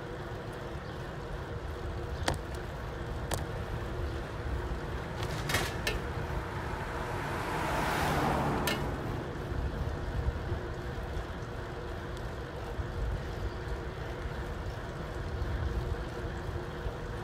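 Steady rumble and road noise of a ride moving along a paved street, with a faint steady hum under it. A few sharp clicks break in, and a swell of noise rises and fades about eight seconds in.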